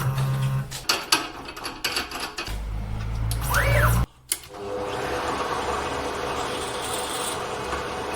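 Stepper motors of a ball-screw CNC cross table moving the table, whining up in pitch and back down as an axis speeds up and slows, with scattered clicks. After a short break about four seconds in, steady machine running noise.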